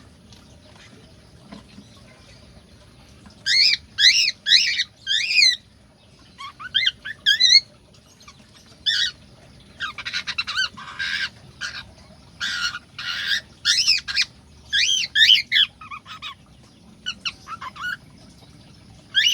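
Cockatiels calling: loud, repeated squawking calls in short bouts of several calls each, starting a few seconds in, with a burst of noisier chattering about halfway through.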